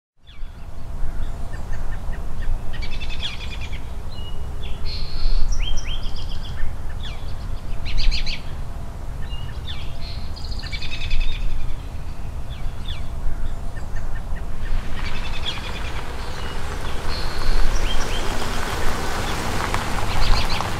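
Birds chirping and trilling, many short calls one after another, over a steady low rumble of outdoor background noise; a hiss swells up in the last several seconds.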